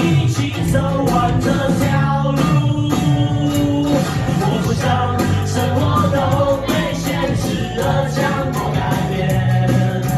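Rock band playing live, with guitars, bass and drums in a steady beat, an instrumental stretch between sung lines.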